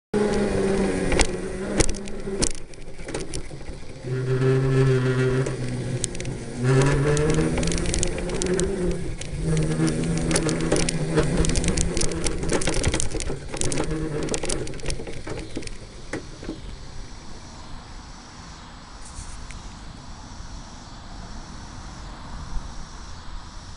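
24 V 450 W electric go-kart motor whining under drive, its pitch shifting up and down with speed, with frequent clicks and knocks from the kart running over rough ground. About sixteen seconds in the motor stops and only a faint steady hiss remains.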